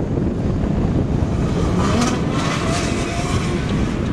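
Maserati MC12's V12 engine revving as the car spins a doughnut, its rear tyres spinning and smoking, with a louder, rising burst about two seconds in. Heavy wind rumble on the microphone runs underneath.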